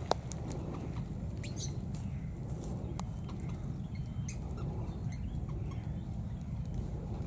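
Outdoor ambience with a steady low rumble. There is a sharp click just after the start, a few fainter clicks, and scattered short high chirps and squeaks from small animals.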